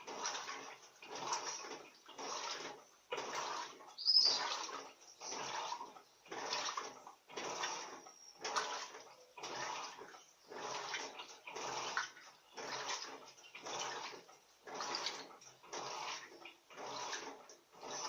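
Electrolux Turbo Economia LTD15 top-loading washing machine agitating a load of towels in water during the rinse, the water surging and sloshing about once a second as the agitator swings back and forth.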